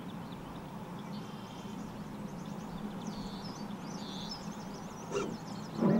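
Outdoor ambience with small birds singing in repeated short chirps and trills over a steady low hum. A brief sharp sound comes near the end, just before something louder starts.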